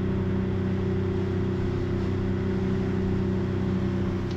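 An engine running steadily at constant speed with an even hum.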